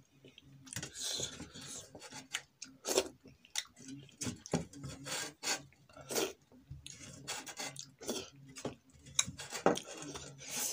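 Fingers scraping and wiping a nearly empty stainless steel plate in short, irregular strokes, gathering up the last of the noodle gravy, with eating sounds from the mouth in between.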